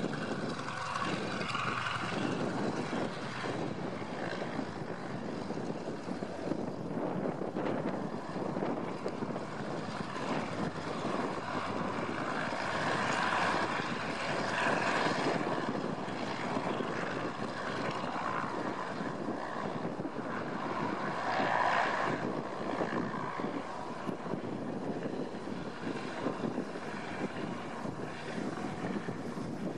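Antonov An-2's nine-cylinder Shvetsov ASh-62 radial engine and propeller running at taxi power as the biplane taxis and turns, swelling a little now and then.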